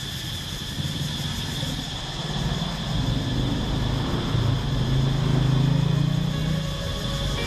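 Street traffic: a motor vehicle's engine passes, swelling to its loudest about five to six seconds in, over a steady high-pitched hum.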